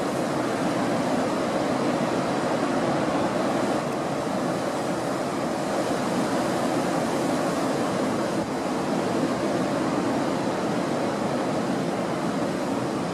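Lake surf driven by high wind, the waves breaking steadily with the wind, under a faint steady hum.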